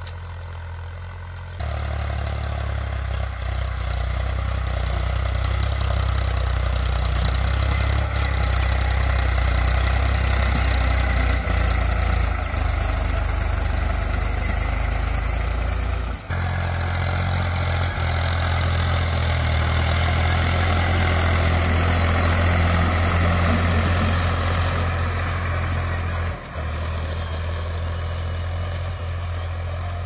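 Diesel farm tractor engine running steadily while it pulls a rotary disc plough through the soil. The sound changes abruptly in level about a second and a half in and twice more later.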